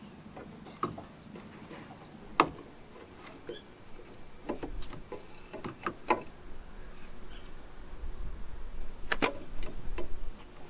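Scattered light clicks and knocks as a small aluminium oil cooler is handled and held against the front of a car with its bumper off; the sharpest knocks come about two and a half, six and nine seconds in.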